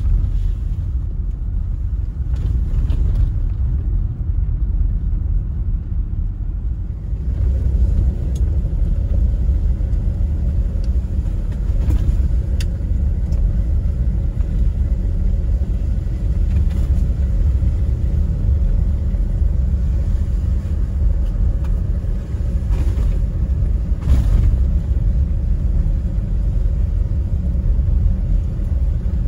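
Jeep Gladiator driving on a wet gravel road, heard from inside the cab: a steady low rumble of engine and tyres. About seven seconds in the road noise gets a little louder, with a few faint ticks scattered through.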